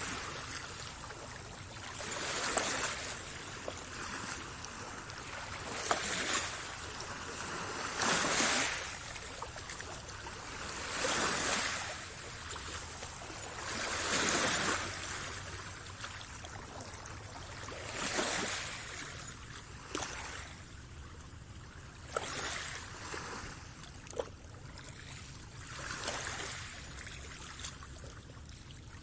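Small waves washing in, one swell every three to four seconds over a steady hiss of water, with a few small sharp ticks and splashes.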